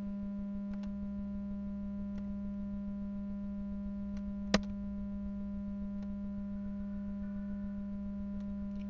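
A steady electrical hum with a ladder of overtones, with one sharp click about four and a half seconds in.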